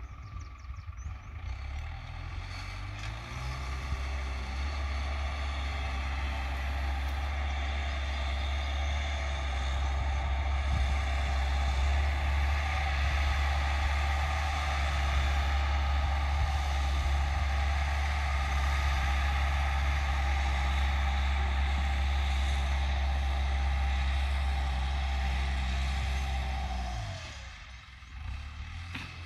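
New Holland TT4.75 tractor's diesel engine working under load as it pulls a plough through the soil. The revs climb over the first few seconds, hold steady, then drop off sharply near the end.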